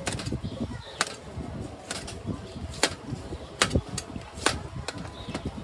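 Kitchen knife slicing pineapple and striking a stainless steel tray, sharp metallic clicks about once a second over low background noise.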